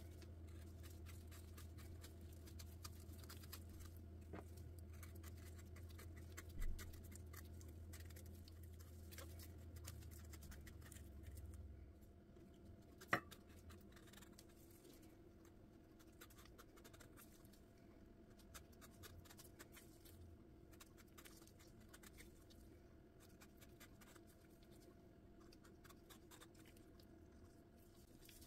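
Faint scratching of a knife scoring the rind of a pomegranate, with a low hum for the first twelve seconds and a single sharp click about halfway through.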